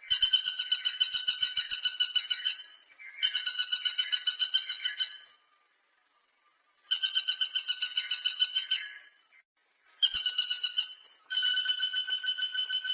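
Woodpecker calling in rapid rattling series of sharp, even notes at about eight a second. It gives five runs, most about two seconds long, with short pauses between.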